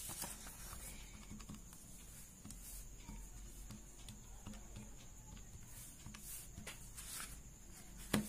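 Scattered soft clicks of the keys of a Casio fx-991MS scientific calculator being pressed, with a sharper click near the end.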